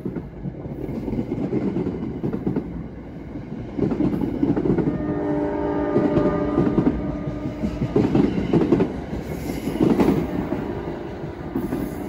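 NJ Transit commuter rail cars rolling past and pulling away: a steady rumble of wheels on rail with a droning tone over it, and louder clatter as wheelsets cross rail joints about every two seconds, easing off near the end as the last car clears.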